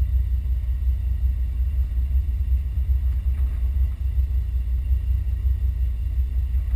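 Car engine idling: a steady low rumble with an even pulse.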